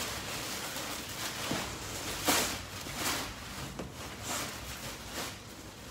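Rummaging in a cardboard box of packed stock: a series of short rustles and scrapes of packaging, roughly one a second, the loudest a little over two seconds in.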